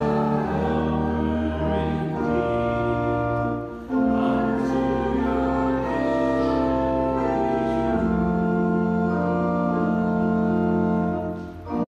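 Organ playing slow, held chords that change about every four seconds, then stopping abruptly near the end.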